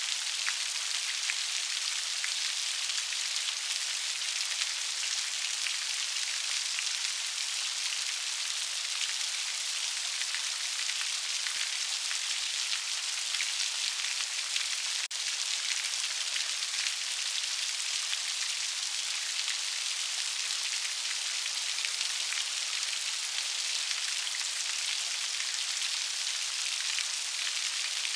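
Steady rainfall: an even hiss of many raindrops pattering on a surface, unchanging throughout.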